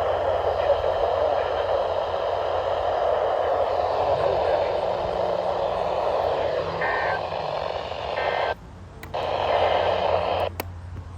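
Steady radio static hiss from a weather radio receiver, with a low hum underneath. Near the end it drops out for about half a second with a click, then another click and the hiss goes quieter.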